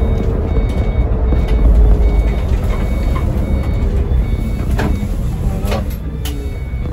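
Iveco Crossway Line bus with an Iveco Cursor diesel engine and ZF six-speed gearbox driving on the road, heard from the driver's cab: a steady low engine and road rumble, easing slightly toward the end. Faint short beeps repeat through it, and there are two brief knocks in the second half.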